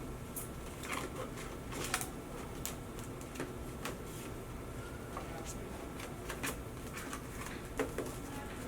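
Paper and cardboard packaging being handled: scattered light rustles and small clicks, one every second or so, over a steady low background hum.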